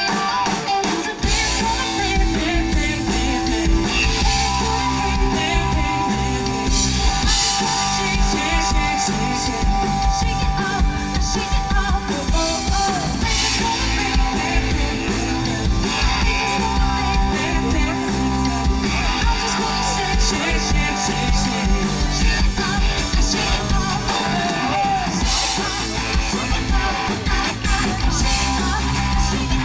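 Live rock band playing, with drum kit, guitar and singing.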